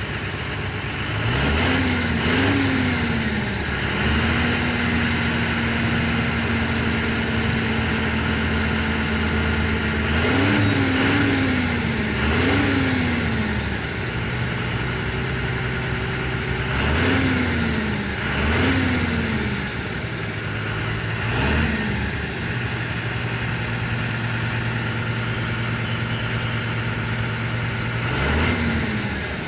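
Tata truck's diesel engine idling, revved in short bursts every few seconds, often two in quick succession, dropping back to idle between them, as the loaded LPG tanker rig strains to pull out of deep mud.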